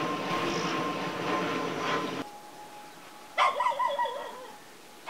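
An animal cries out once about three and a half seconds in, a wavering call that falls in pitch over about a second.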